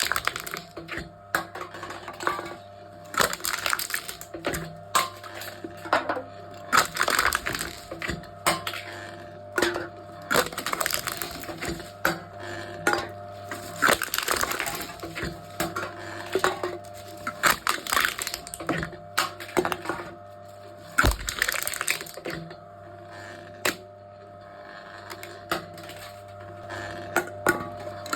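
Aluminium drink cans being crushed one after another by a can-crushing machine: sharp metallic crunches and crackles every second or two, over a steady hum.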